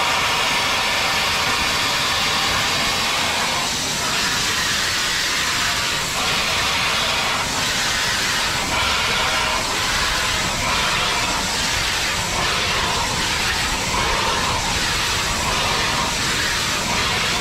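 Steam locomotive running along the line, with a loud, steady hiss of steam and a faint regular beat about once a second.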